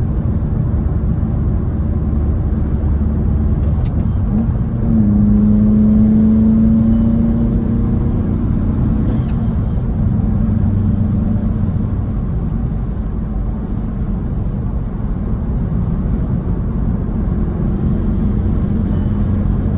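VW GTI MK7.5's turbocharged EA888 four-cylinder, fitted with a BMS intake and turbo muffler delete, heard from inside the cabin while driving: a steady engine and road rumble. About five seconds in the engine pulls under throttle, its pitch climbing slowly for about four seconds before easing off.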